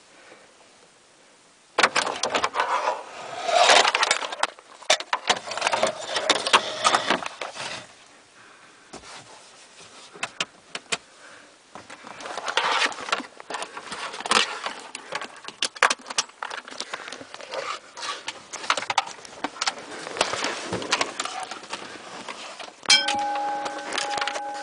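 Irregular clattering, jingling and rustling as keys and loose objects are handled and moved about, coming in clusters. Near the end a steady electronic tone with a few overtones starts suddenly.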